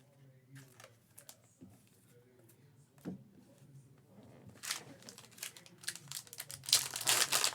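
Foil trading-card pack being handled and torn open: light crinkles at first, then louder crinkling and tearing near the end.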